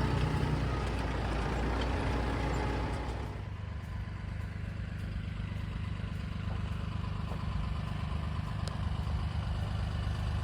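An engine running steadily at low speed, with a low, even hum. About three seconds in, the rougher noise above it drops away and the engine hum carries on.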